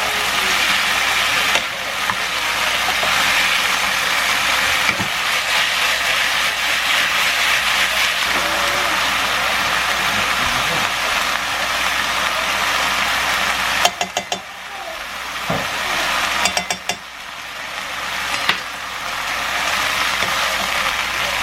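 Food frying in oil in a pan: a steady sizzle, broken by a few sharp clicks about two-thirds of the way through.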